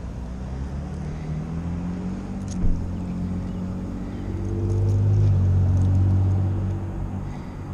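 A motor vehicle's engine passing by: a low hum that swells to its loudest about five to six seconds in, then fades. A single sharp click a little under three seconds in.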